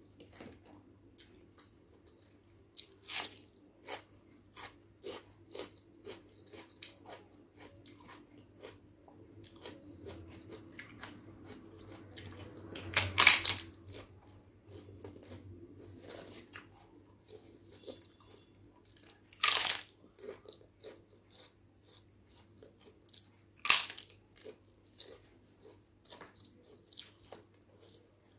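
Close-up eating sounds: wet chewing and small mouth clicks, broken three times by loud crunches of crisp papad (poppadom) being bitten. The first and loudest comes about halfway through, the next about six seconds later and the last about four seconds after that.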